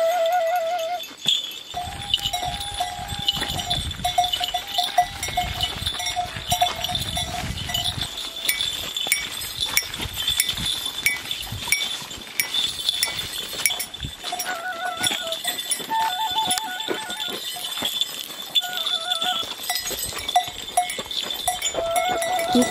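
Goat bells worn by walkers clank irregularly with each step, over a steady high-pitched drone. A wooden shepherd's pipe plays short wavering, trilling notes in the first few seconds and again in the second half.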